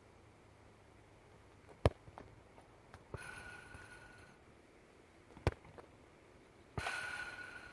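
A football kicked hard at goal: two sharp thuds, about two seconds in and again near five and a half seconds. Between and after them come two rattling, ringing noises lasting about a second each, the second one louder and fading out.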